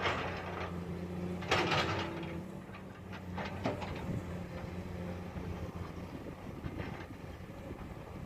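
Heavy machinery's diesel engine running steadily, with metallic clanks and scraping noises: one at the start, a louder clatter about a second and a half in, and a few short knocks a couple of seconds later.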